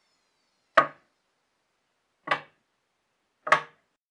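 Three short, sharp knocks about a second and a half apart: a thin steel straightedge set down edge-first on a planed timber beam to check its flatness.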